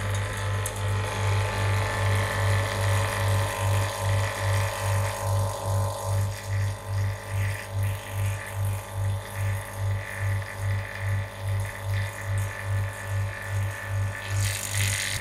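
Oil-sealed HVAC vacuum pump switched on and running steadily, a hum that pulses two or three times a second. It is pulling a deep vacuum on a micron gauge alone, a test of the pump's ultimate vacuum, with a brief rush of noise near the end.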